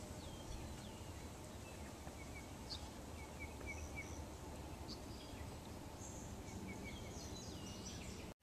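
Outdoor field ambience: scattered small bird chirps and short calls, some in quick little runs, over a steady low rumble of background noise.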